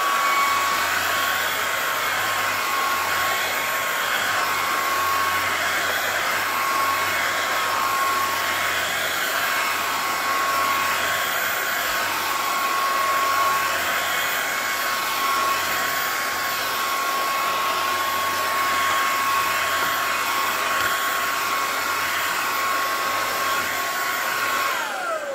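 Bissell IconPet Pro cordless stick vacuum running steadily with a high motor whine while it vacuums a fabric couch, then winding down and shutting off near the end.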